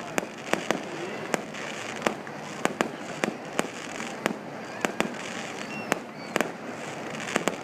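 Fireworks display: sharp bangs going off irregularly, roughly two a second, over a steady hiss of background noise.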